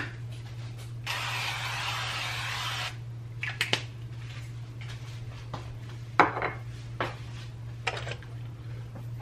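Canola oil cooking spray hissing into a nonstick frying pan in one burst of about two seconds. A few light knocks and clicks follow as the can is handled and set down and the electric stove's knob is turned, over a steady low hum.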